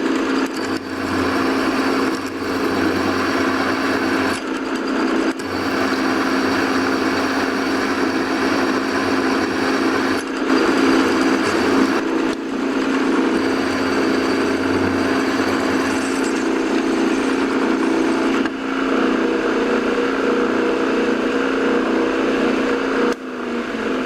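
Milling machine spindle running steadily while a drill bit opens a hole out to 3/8 inch, with a few brief breaks. Near the end the tone falls in pitch as the spindle winds down.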